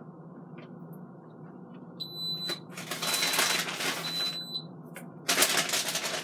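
Instant Pot Duo Mini beeping three times, short high electronic beeps about a second apart, as its display changes. A loud rustling noise follows near the end.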